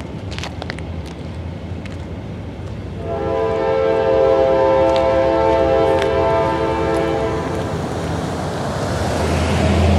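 A diesel locomotive's multi-chime air horn sounds one long chord of about four seconds, starting about three seconds in, from a train approaching the crossing. Near the end a Toyota pickup truck drives past close by, its engine and tyres growing louder.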